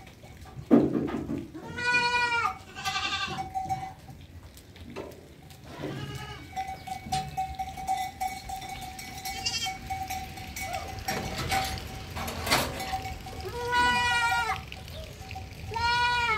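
Goats bleating, about four calls: two close together near the start and two more near the end, with a sharp knock just under a second in.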